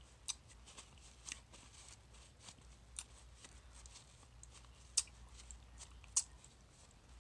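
Paper napkin being crumpled and rubbed between the fingers: faint rustling with scattered sharp crackles, the two loudest near the end.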